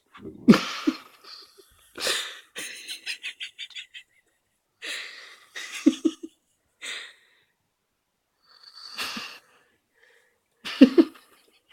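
A sleeping person snoring loudly in irregular bursts, with wheezing breaths. There is a loud snort about half a second in, another near the end, and a fluttering rattle of rapid pulses around the third second.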